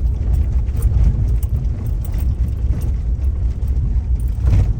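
Low road rumble and engine noise heard inside a car driving over a bumpy road, with small rattles and a knock near the end.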